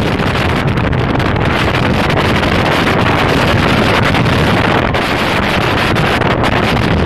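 Wind rushing over the microphone on a moving emergency vehicle, with a steady low engine hum beneath.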